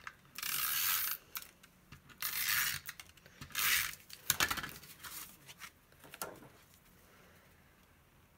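Snail adhesive tape runner drawn across cardstock in three short rasping strokes, followed by a few light clicks and taps as the paper layers are handled.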